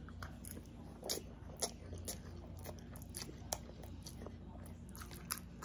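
A person chewing a mouthful of chicken, rice and broccoli, with faint, irregular mouth clicks and smacks.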